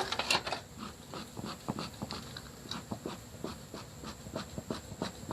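A dog panting in quick, short breaths, several a second.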